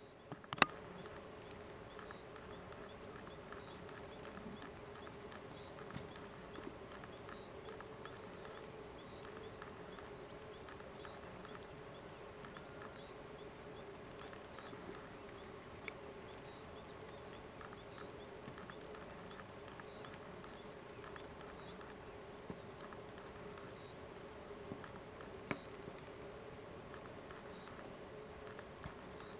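Steady, high-pitched insect chorus trilling without pause. A few sharp clicks stand out, the loudest about half a second in.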